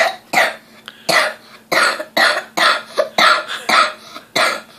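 A boy coughing repeatedly, about ten short, sharp coughs in quick succession, roughly two a second.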